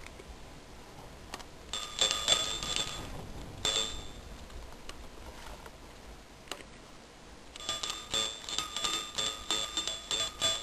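Small bell tied to a shelf, batted by a cat and jingling in short bursts: a few rings about two seconds in and once more near four seconds, then a quick run of jingles from about seven and a half seconds on.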